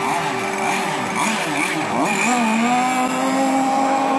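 Several two-stroke gas RC racing boat engines running at once, their pitches wavering up and down; about two seconds in, one revs up and holds a steady high note.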